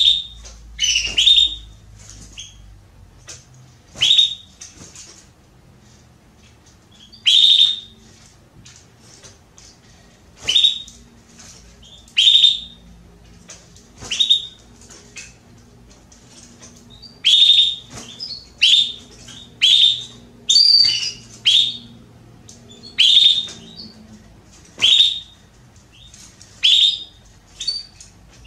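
Female domestic canary (canário belga) giving short, sharp calls that drop in pitch, one every second or two and closer together about two-thirds of the way through. This is the call of a hen in breeding condition soliciting a male for mating.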